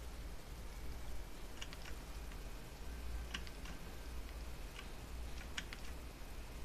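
Short computer mouse and keyboard clicks in small clusters every second or two, over a steady low hum.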